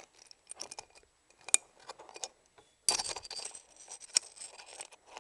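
Allen key and small screw clicking and scraping against the paintball marker's metal frame as the screw is worked at but fails to catch its thread. Two sharp metallic clicks stand out, about a second and a half and four seconds in, with a spell of scraping and rattling around three seconds in.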